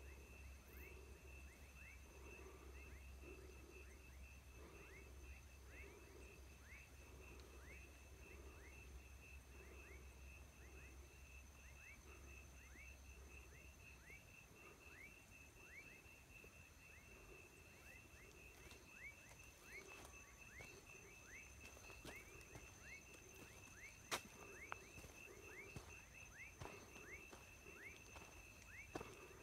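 Faint dusk chorus of night insects: a steady fast-pulsing high trill with a thinner, higher whine above it, a run of short falling chirps about twice a second, and low pulsing calls about once or twice a second. A low rumble underneath stops about halfway, and a single sharp click stands out near the end.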